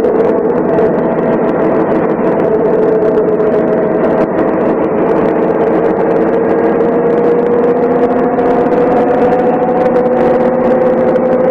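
MAN SL 202 city bus's diesel engine running steadily with a strong droning note. The pitch sags a little about halfway through, then climbs slowly toward the end as the engine picks up revs.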